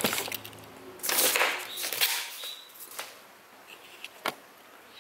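A thermal-paper queue ticket being torn off the printer: a loud rip about a second in, then quieter paper handling and a sharp click near the end.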